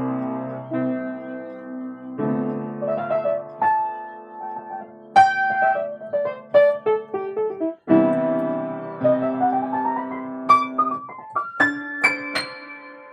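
Solo piano-style keyboard music with no singing: held chords and single struck notes, and a quick rising run of notes about two-thirds of the way through.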